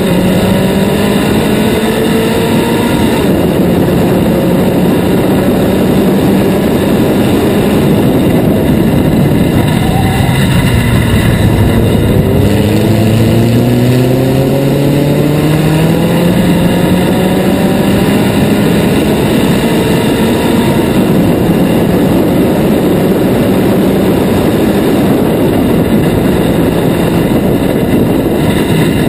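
Formula Sheane single-seater's engine at racing speed, heard from on board. It holds high revs, drops about ten seconds in, then climbs steadily in pitch as the car accelerates.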